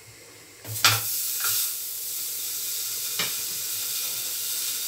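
A raw paratha laid into a hot frying pan starts to sizzle with a sharp knock just under a second in. The sizzling then holds steady, with two light knocks later on.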